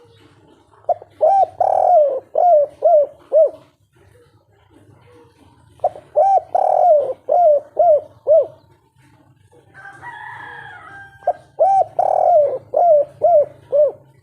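A spotted dove (tekukur) sings its three-part 'kuk 3' cooing song three times, about five seconds apart. Each phrase is a long coo followed by a quick run of short notes. A brief, higher, rougher sound comes just before the third phrase.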